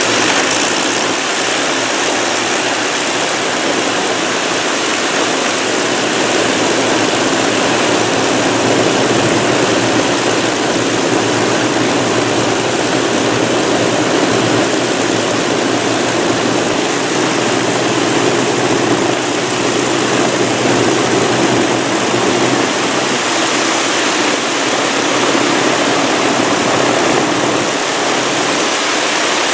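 Avro Lancaster bomber's Packard-built Merlin V-12 engines running steadily on the ground, several propellers turning, a steady loud rushing drone.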